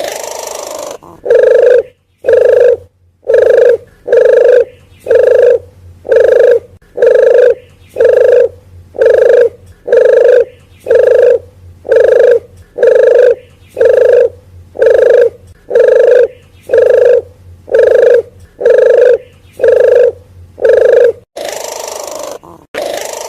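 Recorded lure call of a wild dove (puter geni / puter hutan): a long run of short, evenly repeated coos, about one every 0.8 seconds. A softer, longer gliding coo comes at the start and again near the end.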